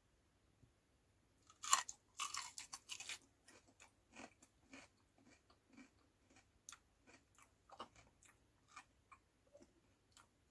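A bite into a raw potato about two seconds in, then crunchy chewing that settles into softer chews about twice a second: a foley artist performing an eating sound.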